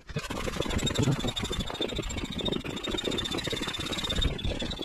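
Foot bellows pump inflating a PVC inflatable boat through a corrugated hose: a rush of air with a steady thin high whistle, starting suddenly.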